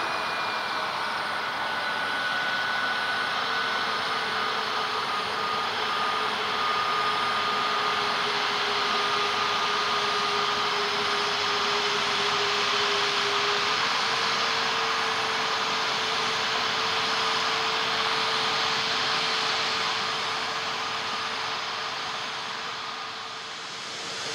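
Airbus A321neo's two turbofan engines running at taxi power: a steady whine over a hiss, with a low held tone that steps up slightly about halfway through. The sound dips a little near the end, then swells again as the aircraft turns.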